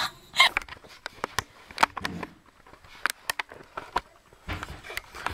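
A brief laugh, then scattered sharp clicks and small knocks of handling noise on the camera and microphone.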